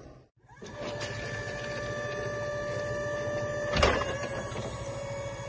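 Hyster E2.0XN electric forklift's hydraulic pump motor whining steadily as the mast lifts the forks, starting just under a second in. A single clunk about four seconds in is the loudest moment, after which the whine settles slightly lower.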